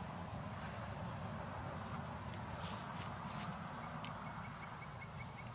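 Steady high-pitched insect drone, such as cicadas or crickets, over a low rumble, with a few faint ticks.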